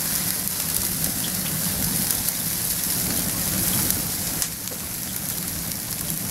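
Charcoal and pecan wood burning in a barbecue grill with open flames: a steady hiss with a few faint crackles.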